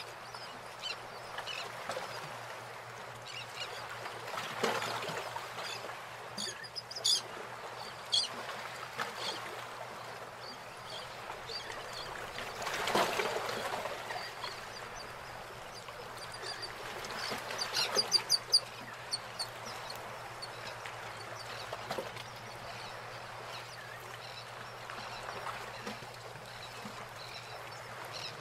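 Pencil scratching short fur strokes on paper, with a few brief clusters of rapid high ticks about a third of the way in and again past the middle.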